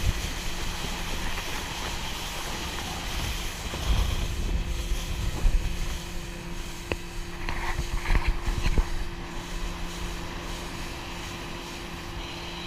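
An engine droning steadily over low wind rumble on the microphone, with a few faint knocks near the middle.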